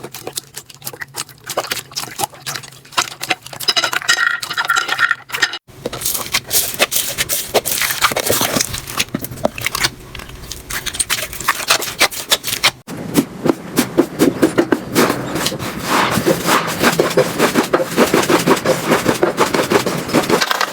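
Slime being squeezed and pressed by hand: a dense run of small crackling pops and sticky clicks. The sound changes abruptly twice, about five and a half and thirteen seconds in.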